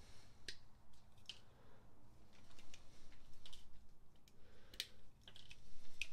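Inner plastic tabs of a speaker adapter bracket being snapped off with pliers: a scattered series of sharp, short clicks and snaps.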